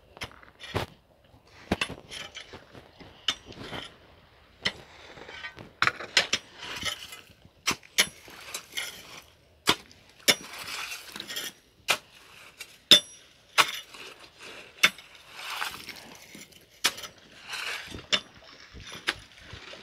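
A long-handled metal digging tool strikes and scrapes through gravel and stones. Sharp, irregular clinks come roughly once a second, with short gritty scrapes between them.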